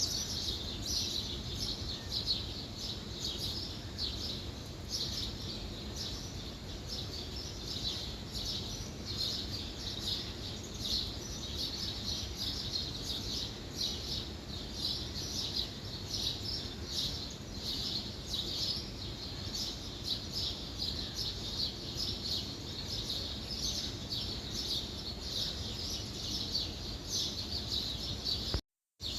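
Many small birds chirping continuously over a low steady hum, with a brief cut to silence near the end.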